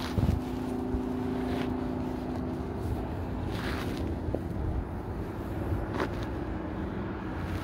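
Interstate highway traffic: a steady rumble and tyre noise of vehicles going by, with brief passing swells now and then. A low steady hum of an engine runs through the first three seconds and then fades.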